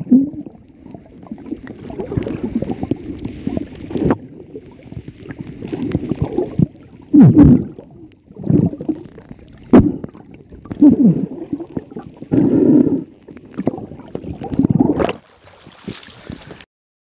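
Muffled underwater water sound on a submerged camera: uneven gurgling and sloshing with dull thumps. Near the end the camera breaks the surface with a brief splashing hiss, and then the sound cuts off suddenly.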